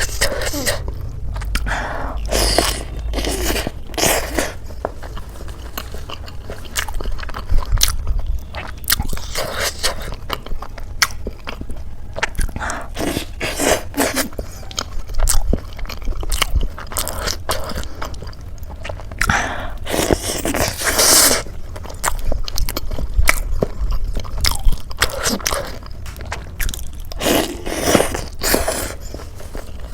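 A person eating close to the microphone, with irregular bites and crunchy chewing of crisp food and occasional longer crackly bursts.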